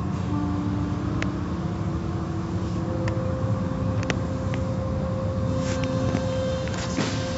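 Automatic tunnel car wash machinery heard from inside the car: a steady low rumble of motors and spraying water with a constant hum, and a few sharp clicks.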